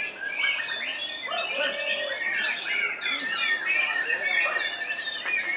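Caged white-rumped shamas singing: a dense tangle of overlapping whistles, trills and chirps, with one long steady whistle held through the middle.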